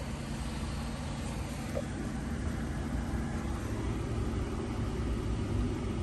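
Steady low mechanical hum and rumble, with a few even hum tones and no clear starts or stops.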